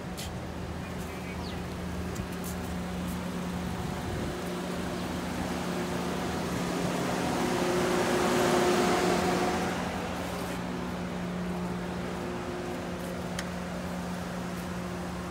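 A motor vehicle's engine running with a steady, even hum. It grows louder toward the middle and then fades back.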